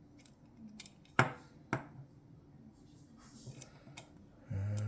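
Two sharp metallic knocks, about half a second apart, from the brass lever lock and its casing being handled, with a few lighter ticks. Near the end a steady low hum starts and lasts about a second.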